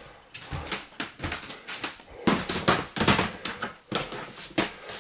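Irregular knocks, thumps and rustling of boxes and belongings being handled and set down, with several sharper clunks near the middle.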